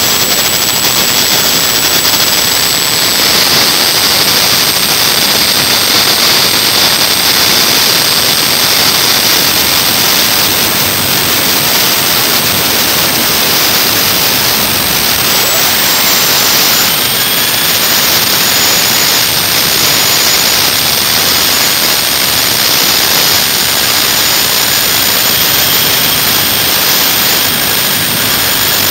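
MAN marine diesel engine running loud and steady at about 1,800 to 1,900 rpm under load, with boost pressure building, and a steady high-pitched whine over the engine noise.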